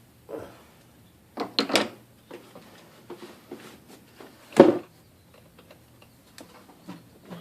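Hand tools and parts being handled in a truck's engine bay during throttle body reassembly: scattered clicks and knocks, a quick cluster of three about a second and a half in and the loudest single knock about four and a half seconds in.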